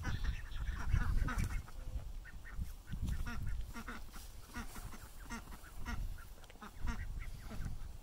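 Farmyard poultry calling, mostly short quacks of ducks repeated many times, over a low rumble.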